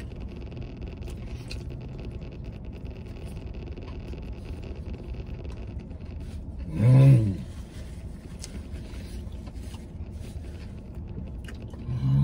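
A man eating a burger, chewing with faint mouth clicks and wrapper rustles over a steady low rumble, broken by a short loud voiced grunt about seven seconds in and another near the end.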